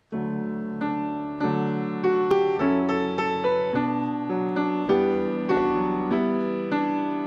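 Yamaha grand piano playing a slow hymn introduction: chords struck one after another, each ringing on and overlapping the next, starting suddenly out of silence.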